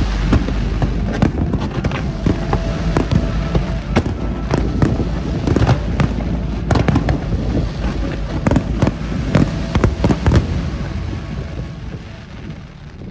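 Fireworks display from a few hundred metres away: a fast barrage of shell bursts, many sharp bangs close together over a continuous crackle and rumble, thinning out near the end.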